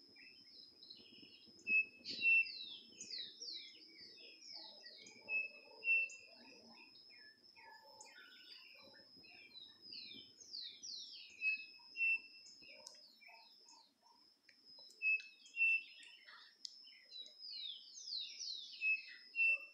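Striped cuckoo, the bird called yasy yateré, whistling: a pair of clear notes about half a second apart, repeated five times every few seconds. Other birds give quick falling chirps, and a steady high insect drone runs underneath.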